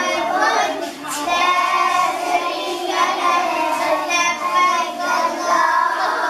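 A group of young children singing together in unison, in repeated phrases with short breaks between them.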